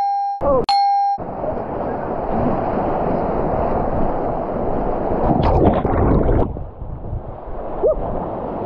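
Whitewater rapids rushing and splashing around a kayak, with heavier splashes about five and a half to six and a half seconds in. It opens with a steady electronic beep, broken once, lasting about a second, during which the water sound drops out.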